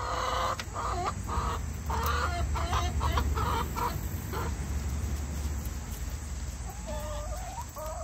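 Domestic hens clucking: a quick run of short calls in the first half, then a couple more calls near the end.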